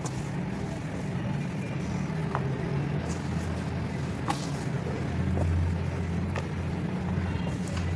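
Dry red dirt being crumbled by hand and poured back into a plastic basin, giving scattered soft crackles and ticks. Under it runs a steady low hum that swells for a couple of seconds past the middle.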